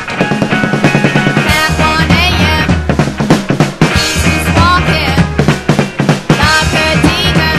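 Background rock music with a drum-kit beat, bass and guitar; the bass and drums come in fully about one and a half seconds in.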